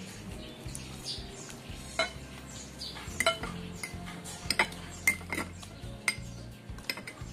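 Cutlery clinking against a dish during a meal: about ten sharp, irregular clinks, the loudest about two, three, five and six seconds in.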